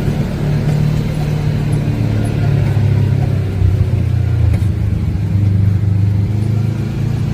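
Vehicle engine running while driving, its low drone shifting up and down in pitch with the throttle.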